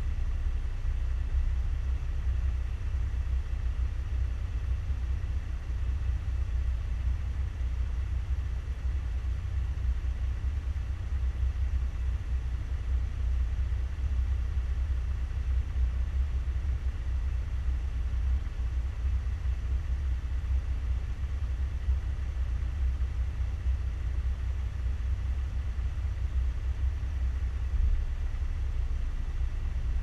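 Off-road vehicle's engine idling while stopped, a steady low rumble with no revving.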